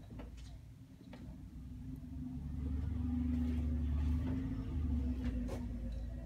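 A low rumble with a steady hum above it, swelling from about two seconds in and easing off near the end, with a few faint clicks.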